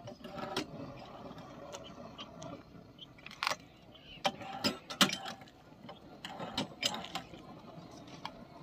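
Irregular sharp clicks and clinks of metal, a dozen or so spread unevenly, over faint background noise.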